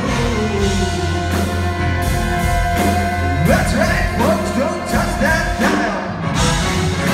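Live rock band playing: electric guitars, bass and drums, with keyboards, in an instrumental passage. A run of about five quick upward-sliding notes comes about halfway through.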